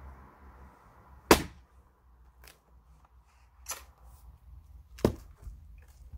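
A Hults Bruk axe splitting a firewood round on a chopping block: one sharp crack about a second in, the loudest sound. Lighter knocks of wood follow, then a second sharp knock of axe and wood about five seconds in.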